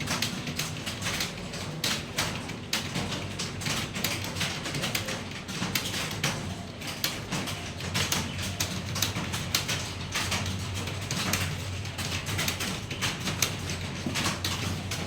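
Computer keyboard keys being typed on fast, a dense irregular run of clicks, over a steady low hum.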